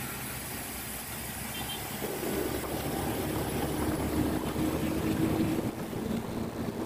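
Steady wind and road noise from riding along a busy highway. About two seconds in it grows louder, and a steady engine hum sits in it until near the end.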